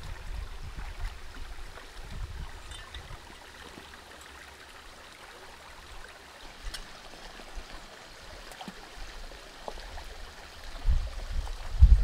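Shallow rocky stream running over stones: a steady, soft rush of water. Low rumbling bursts come in near the end.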